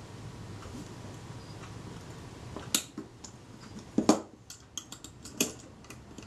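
Scattered sharp clicks and small metallic taps as fine tweezers, a circlip and the camera's metal top plate are worked on by hand. The loudest comes about four seconds in, a click followed by a duller knock as the camera body is handled, then several lighter ticks.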